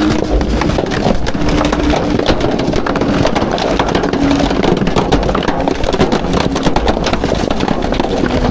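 Heil Half/Pack garbage truck compacting a load during a packing cycle: trash, styrofoam and plastic crushing with a dense run of irregular cracks and snaps, over the steady low rumble of the truck's engine and hydraulics.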